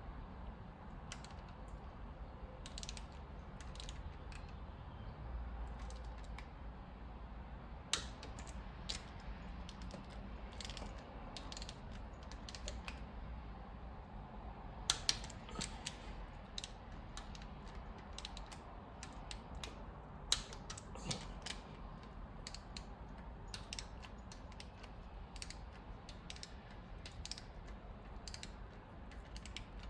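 Ratchet and metal hand tools clicking and clinking irregularly as the rocker arm bolts are run down on the cylinder head, with a few sharper metal knocks spread through.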